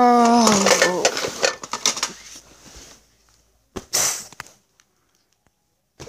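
A person's drawn-out voice sliding down in pitch, fading out about a second in, followed by a cluster of light clattering clicks from things being handled. A short breathy hiss comes about four seconds in.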